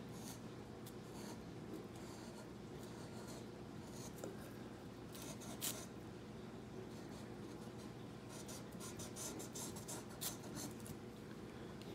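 Felt-tip pen scratching and dabbing along the cut edges of a card-and-foamcore model building to darken them, faint irregular strokes in short runs, busiest in the middle and toward the end.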